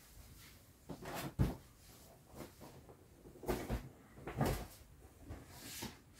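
Handling noise from large inflated vinyl toys being carried and set down on a bed: a handful of soft bumps and rubs, spaced irregularly, about five in all.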